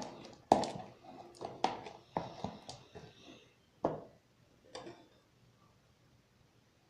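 A spoon knocking and clicking against a bowl while stirring slime: about seven irregular knocks over the first five seconds.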